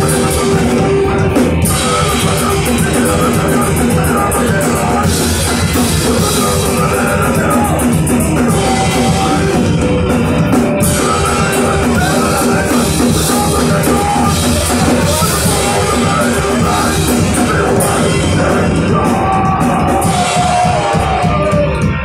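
Punk rock band playing live at full volume: electric guitars, bass and a drum kit, with some singing.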